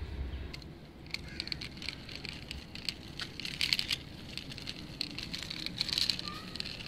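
Gritty crackling and clicking of a die-cast toy pickup truck's wheels rolling over rough concrete as it is pushed along by hand, louder in clusters about halfway through and near the end.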